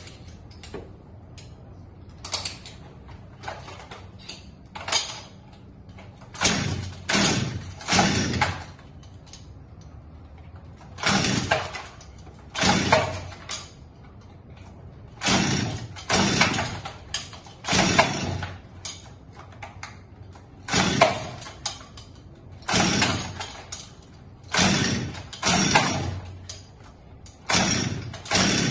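Stihl MS 250 two-stroke chainsaw being pull-started again and again: about twenty short cranking rasps of the starter cord, often two or three in quick succession, and the engine never catches and runs.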